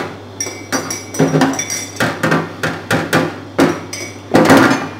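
Metal spoon stirring a drink in a glass mug, clinking against the glass in quick, irregular ringing taps, about two or three a second, loudest near the end.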